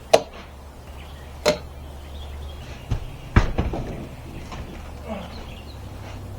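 Sharp knocks and bumps as a window air conditioner is worked into a hole cut through a house wall: four hard knocks, the last two close together and the last the loudest, with lighter clatter after, over a low steady hum.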